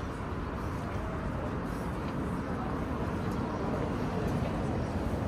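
Steady city street ambience: a low, even rumble of road traffic with no distinct events standing out.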